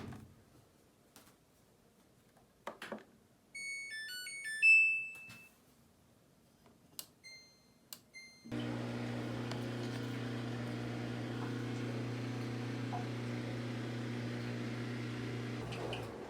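Drum washing machine control panel playing a short electronic jingle, then three short button beeps. About eight and a half seconds in the machine starts its cycle with a steady hum that lasts until just before the end.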